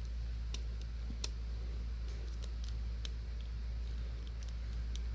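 Faint, irregular small clicks and ticks, like light handling, over a steady low hum.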